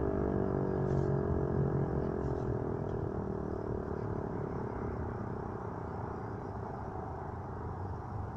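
Federal Signal Eclipse 8 electromechanical siren winding down at the end of its noon blast, its tone sliding slowly lower and fading out over the first few seconds. A low steady rumble remains after it.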